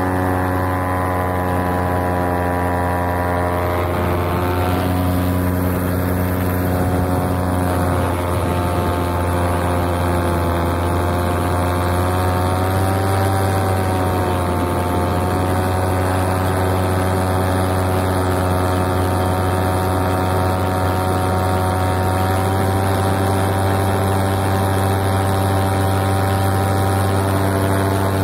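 Paramotor engine and propeller running steadily at cruise in flight, with a deep drone and a stack of higher tones. Its pitch wavers briefly about four seconds in and again between about twelve and fifteen seconds in.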